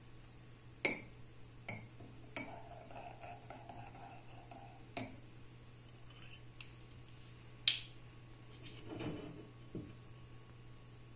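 Sparse clinks and knocks of a metal spoon, a glass jar, a ceramic mug and a glass bottle being handled on a counter, the sharpest about eight seconds in. A short scraping stretch comes between about two and a half and five seconds. A brief grinding twist near nine seconds is the bottle's screw cap coming off.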